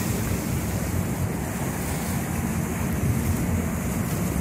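Wake water churning behind a moving fishing boat, with wind buffeting the microphone and a steady low rumble underneath.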